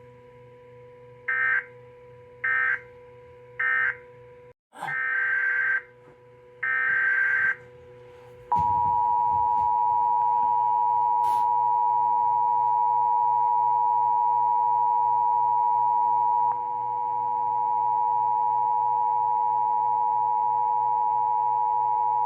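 Emergency Alert System data bursts: three short warbling squawks, then two longer ones. About eight and a half seconds in, the steady two-tone EAS attention signal starts and holds to the end.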